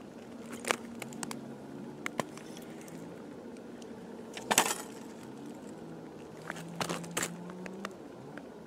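Scattered clicks and clatters of a wooden ice-fishing tip-up being handled and set on the ice beside the hole, the loudest knock about halfway through. A faint engine hum runs underneath.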